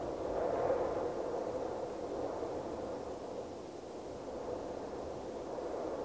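Steady rushing outdoor background noise, swelling slightly about a second in, with no bird calls.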